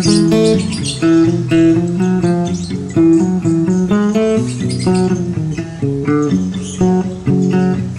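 Background music led by plucked guitar, with a run of notes that starts fresh about once a second.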